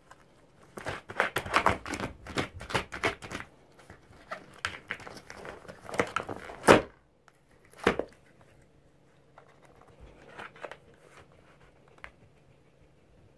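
Red fox tearing a cardboard box with its teeth and paws: a run of quick ripping and crinkling sounds, ending in one loud rip about halfway through, then only a few scattered, quieter rustles.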